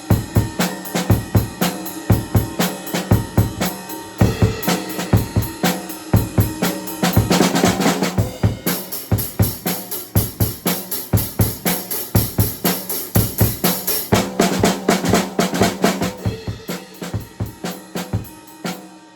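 Acoustic drum kit played in a steady rock beat of kick and snare strokes. A quick fill comes about seven seconds in, then several seconds of ringing cymbals, and another fill follows around fourteen seconds.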